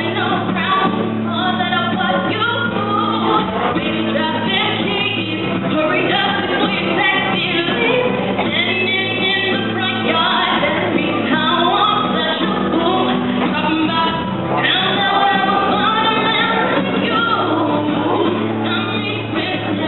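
A woman sings a song into a microphone, accompanied by a strummed acoustic guitar.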